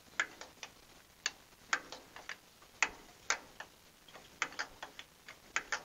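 Irregular sharp metallic clicks, about two or three a second, from a wrench working a rusted spark plug on a 1924 Fordson Model F tractor engine.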